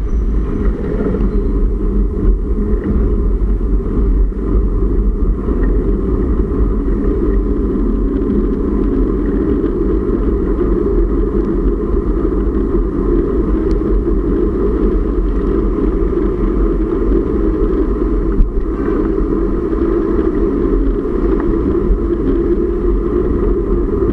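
Steady rushing road noise from a moving bicycle in traffic: wind on the microphone mixed with passing motor traffic, heaviest in the low end and unbroken throughout.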